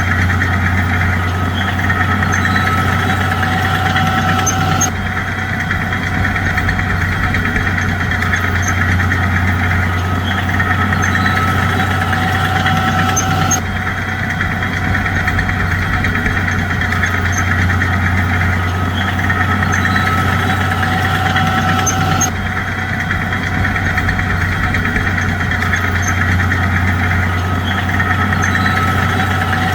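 Bulldozer's diesel engine running steadily with a deep drone. The sound shifts abruptly about every nine seconds and repeats the same pattern, like a looped engine track.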